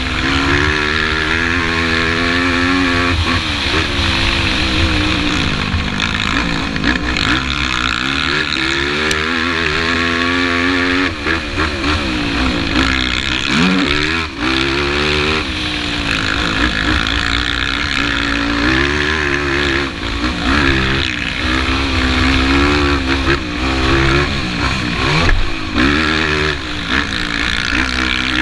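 Yamaha YFZ450 quad's single-cylinder four-stroke engine under race throttle, revving up and falling back again and again through gear changes and corners, heard over wind noise on the helmet-mounted microphone.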